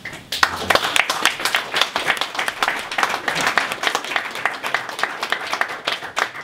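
A room of people applauding: many hands clapping, starting about a third of a second in and going on steadily.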